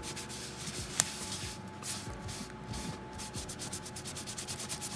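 A baby wipe rubbed back and forth over leatherette patches, scrubbing soot off them after cutting: quick repeated rubbing strokes, about three or four a second. A single sharp click comes about a second in.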